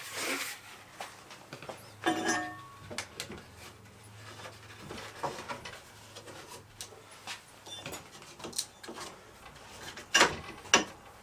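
Scattered metal clicks, clinks and knocks of the knife grinder's small-wheel attachment, belt and work rest being handled and fitted by hand, the motor not running. There is one ringing clink about two seconds in, two sharp clacks near the end are the loudest, and a faint steady hum lies underneath.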